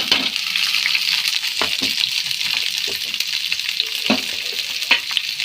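Chopped onion and other vegetables sizzling in hot oil in a pan, with a steady hiss, while being stirred, with scattered clicks and scrapes of the stirring utensil against the pan.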